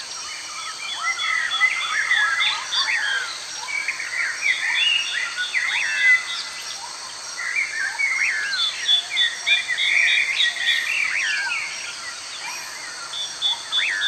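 Birds chirping and calling: many short, overlapping sweeping chirps and whistles, with a rapid pulsed trill that comes and goes every few seconds, over a steady hiss.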